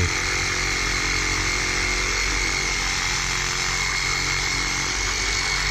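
Handheld power tool cutting through PVC, running at a steady speed: a continuous harsh cutting noise with a steady high whine.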